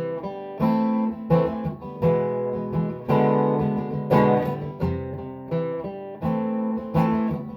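Acoustic guitar strumming chords without singing, a fresh stroke every second or less, each chord left to ring.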